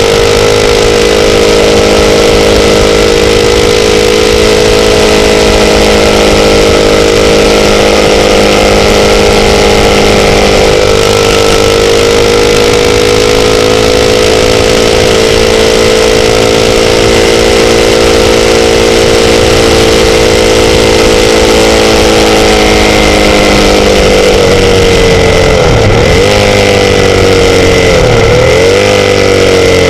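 Sportbike engine running at a steady, near-constant pitch under a steady hiss, then dipping and picking back up in pitch several times in quick succession near the end.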